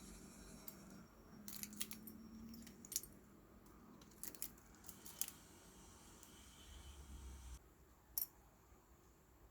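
Faint, irregular clicks and taps of small metal tools and parts being handled during smartphone repair work, with one sharper click near the end.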